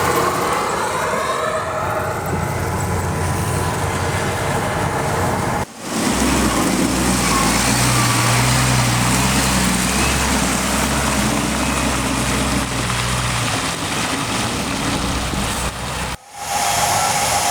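Road vehicles running: engine hum and a steady rush of traffic noise, broken by two abrupt cuts, about six seconds in and near the end. The low engine hum is strongest in the middle stretch.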